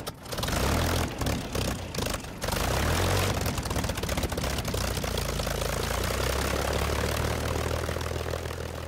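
Propeller aircraft's piston engine running, uneven for the first couple of seconds and then steady.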